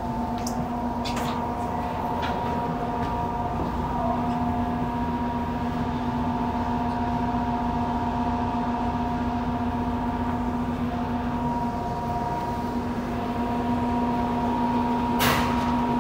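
Steady electrical hum of a Yokohama Municipal Subway 3000A train standing at a station, a few fixed tones that hold pitch without rising or falling. A few faint clicks, and one short sharp clatter near the end.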